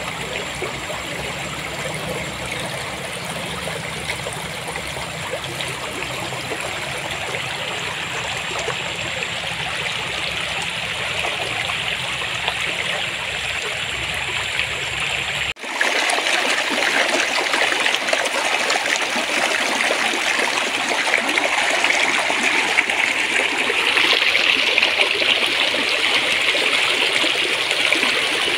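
Clear water flowing and babbling steadily in a stream. About halfway through there is an abrupt cut to a slightly louder, brighter stretch of water, and a low hum under the first part drops out.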